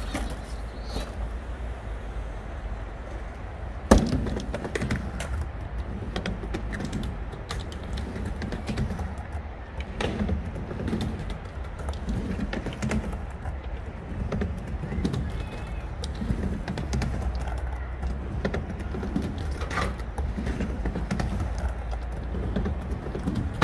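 Surfskateboard wheels rolling on a skatepark ramp, a steady low rumble, with one sharp clack of the board about four seconds in.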